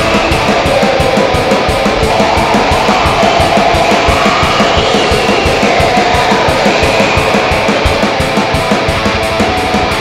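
Raw black metal: distorted electric guitar over fast, steady drumming, in a dense, loud mix with no vocals.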